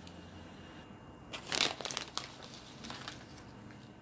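Sprinkles being handled and scattered over frosted cupcakes: a burst of crinkling and rustling about one and a half seconds in, then a few lighter rustles.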